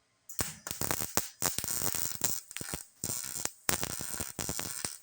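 Titanium MIG 140 wire-feed welder arc crackling and sputtering in about four short bursts while .024 wire tack-welds a thin sheet-metal patch panel.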